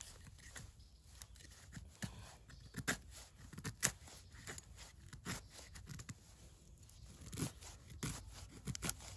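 Dry sticks and twigs snapping and crackling as they are broken by hand, a run of irregular sharp cracks with louder snaps about three and four seconds in and again near the end.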